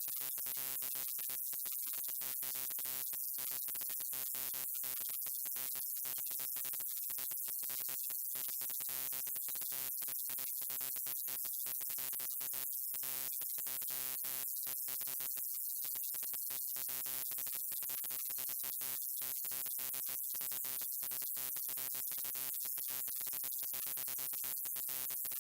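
Electrical buzz of a neon sign: a steady mains hum with many evenly spaced overtones and a bright hiss above it. It is broken by many very brief cutouts.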